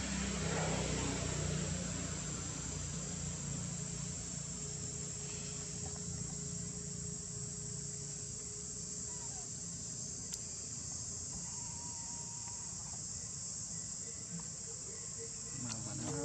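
Steady high-pitched drone of insects, unbroken throughout, over a low rumble that fades out about halfway through.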